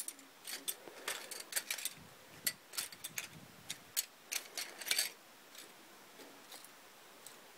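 Loose plastic LEGO pieces clicking and clattering against each other as a hand rummages through a pile of them. The clicks come thick and irregular for about five seconds, then thin out to a few faint ones.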